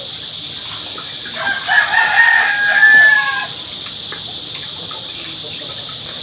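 A rooster crowing once. The crow starts a little over a second in and lasts about two seconds, with a few short notes leading into a long held note that drops off at the end. A steady hiss runs underneath.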